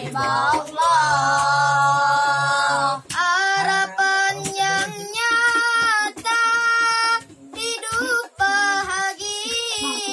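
Boys' voices singing a sholawat, a devotional song in praise of the Prophet, in long held notes with wavering, ornamented pitch. There are brief breaks between phrases about three seconds in and again near eight seconds.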